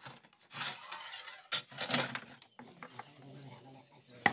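A metal baking tray and a long iron peel scraping across the floor of a brick oven as the tray is dragged out, in several scraping pulls, with a sharp clank at the very end.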